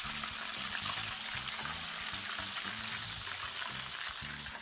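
Chicken thighs deep-frying in hot oil, a steady sizzling crackle.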